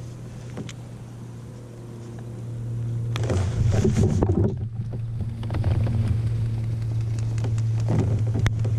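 Pedal drive of an Old Town Topwater PDL kayak running under steady pedalling, a steady low hum. A cluster of knocks and clatter from the kayak comes about three seconds in.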